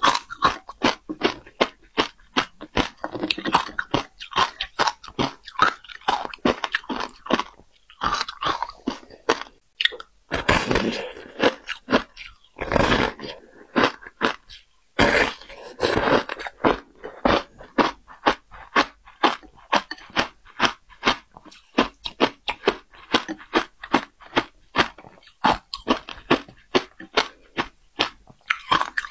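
Close-miked crunching of a block of shaved ice coated in passion fruit pulp as it is bitten and chewed: rapid, crisp crunches about three a second, with a few longer, coarser bites in the middle.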